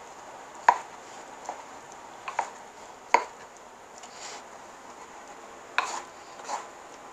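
Pestle pounding and grinding wet nixtamalized corn in a mortar: a series of sharp, irregular knocks as the pestle strikes, with quieter grinding in between.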